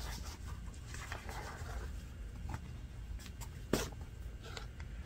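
Hand-stitching thin, flexible leather with artificial sinew: faint rustling and scratching of the leather as the needle and sinew are drawn through the stitch holes, with small scattered clicks and one sharp click about three-quarters of the way through.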